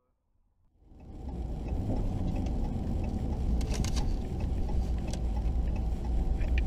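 Engine and road rumble of a moving vehicle heard from inside the cab, steady and low. It fades in about a second in, with a couple of brief clicks or rattles near the middle.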